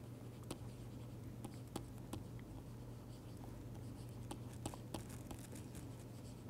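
Faint, irregular tapping and scratching of a stylus writing on a tablet screen, a small click with each pen stroke, over a steady low electrical hum.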